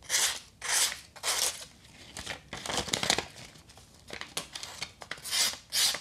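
A freshly sharpened plane iron slicing through a sheet of paper in a series of short, dry cutting strokes, with a few quieter ticks in between. The strokes come faster near the end. The edge cuts the paper cleanly, passing the paper test for sharpness.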